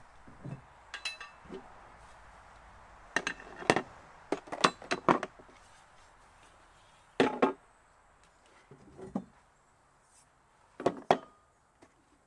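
Irregular knocks and clinks of hand tools being handled and set down on a rolling tool cart, in short scattered clusters, the busiest about three to five seconds in.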